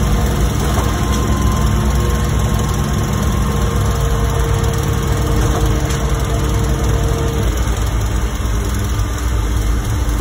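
Concrete pump truck's diesel engine running steadily to drive the pump, with a steady whine that stops about seven seconds in.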